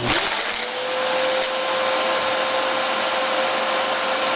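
Hoover vacuum cleaner switched on, its motor spinning up over about half a second into a steady whine and then running steadily. It is giving almost no suction.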